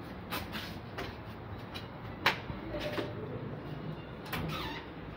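Steel door being handled: several clicks and knocks, the sharpest a little over two seconds in, and a short falling squeak about four seconds in.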